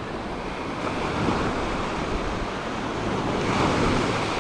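Small surf waves breaking and washing up the sand at the shoreline, a steady rushing wash, with wind buffeting the microphone.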